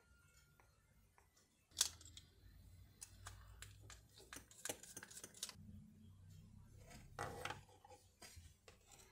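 Faint clicks and rattles of a cordless phone handset's plastic case and circuit board being handled and pried apart, with one sharp click about two seconds in.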